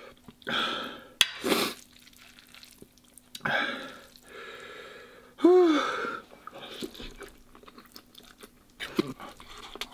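A man eating extra-spicy fried noodles: chewing and several sharp puffs of breath through the mouth, a short voiced groan about halfway through, and noodles slurped from a fork near the end.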